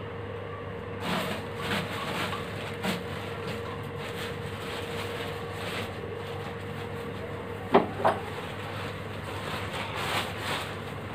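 Clothes being pulled from and handled at a wooden wardrobe: soft rustling and light knocks, with two sharp knocks close together about eight seconds in, over a steady hum.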